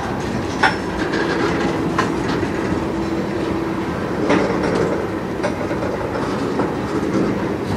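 Freight train tank cars rolling past: a steady rumble of steel wheels on rail, with a few sharp clacks as wheels cross rail joints. A faint steady whine runs through the first half.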